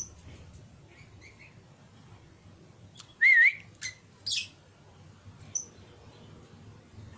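A warbling whistle about three seconds in, then lovebird calls: a short sharp call, a shrill screech and, near the end, a brief high chirp.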